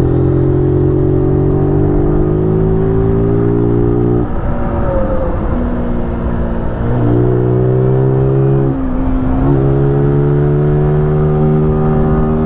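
A 125 cc motorcycle engine accelerating hard in three rising pulls through the gears. The note drops briefly at each gear change, about four seconds in and again near nine seconds, over wind rumble on the helmet microphone.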